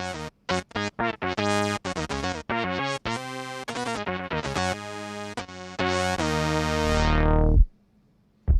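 Keyboard synthesizer played in a run of short, detached notes, then a held note from about six seconds in that grows duller and cuts off, leaving a short silence near the end.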